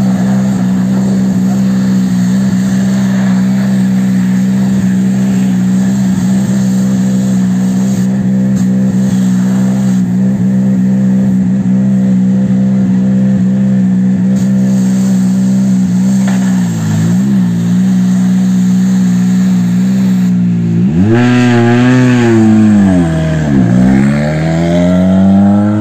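The Ford Puma Rally1 car's turbocharged 1.6-litre four-cylinder engine idling steadily, dipping briefly about 17 seconds in, then revved up and down several times near the end.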